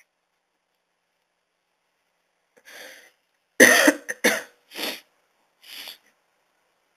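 A man coughing into a close microphone: a fainter sound about two and a half seconds in, then a loud fit of coughs about a second later, the first the loudest, tailing off into two smaller coughs.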